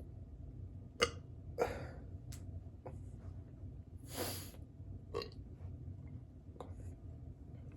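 Several short, separate burps from a stomach bloated with soda, the loudest about a second in.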